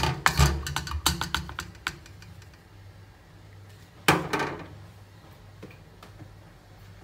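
A scoop and a metal mesh strainer clicking and tapping against a ceramic bowl as besan flour is tipped into the strainer. There is a quick run of light taps, then one louder knock with a brief ring about four seconds in.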